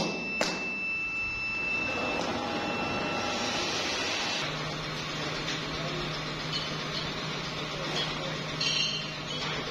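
Workshop machinery running: two sharp clicks at the start, a high steady tone that stops about two seconds in, then a steady low hum that sets in about four seconds in.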